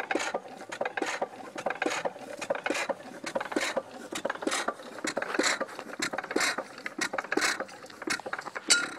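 1.5 hp Sattley hit-and-miss gas engine running on its own in one of its short bursts, a sharp beat about twice a second that is uneven in strength. A louder hit comes near the end, and then it stops.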